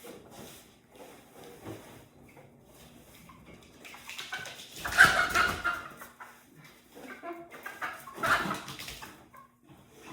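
Animal vocalising: two louder calls, about four and a half and eight seconds in, over quieter scuffling.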